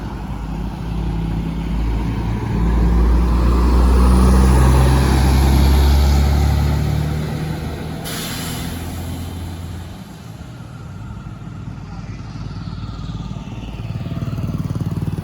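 Diesel engine of a heavy tronton truck passing close by, its low engine note swelling to its loudest about four seconds in and then fading. A sharp hiss comes about eight seconds in.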